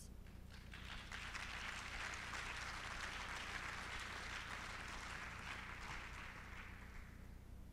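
Audience applauding, building about a second in and fading away near the end.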